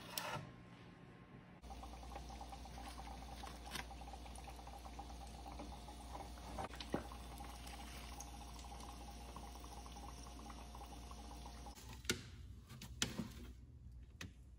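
Samosas frying in hot oil: a steady, fine crackling sizzle over a low hum, lasting about ten seconds. A couple of sharp clicks near the end.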